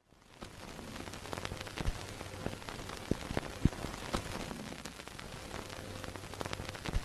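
Crackling surface noise: a steady hiss scattered with irregular sharp clicks and pops, an old-film or worn-record crackle effect.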